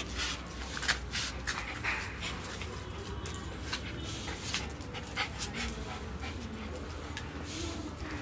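Small white spitz-type dog panting in short, irregular breathy huffs as it plays, over a steady low rumble.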